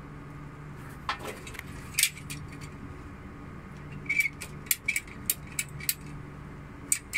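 Ratcheting PPR pipe cutter clicking as it is worked through a green plastic water pipe: two sharp clicks, then from about four seconds in a run of about three clicks a second.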